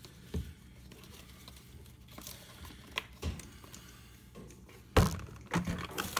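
Scattered clunks and knocks as a portable nitrogen drain-blowing tank and its hose and strap are handled. The loudest knock comes about five seconds in, and a low steady hum runs underneath.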